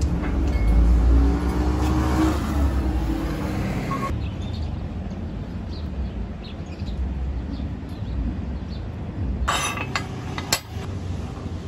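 Low rumble of passing road traffic. Near the end come a few short metallic knocks as the steel test plates are handled on the bench.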